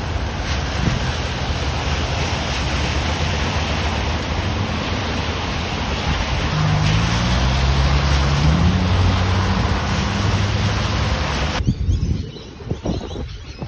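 Moving car: steady road and wind noise, with the engine note rising about halfway through. The noise cuts off abruptly near the end, leaving quieter scattered sounds.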